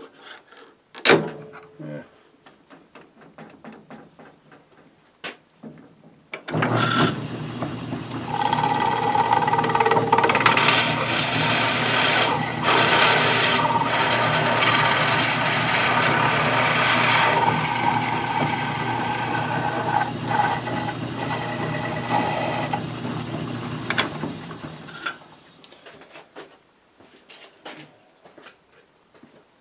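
A few small clicks and a sharp knock as the lathe is set up. Then a metal lathe starts and runs while a twist drill in the tailstock bores into the centre of a 3D-printed plastic bandsaw wheel turning in the chuck. A steady higher tone rides over the motor hum through most of the cut, and the lathe winds down and stops near the end.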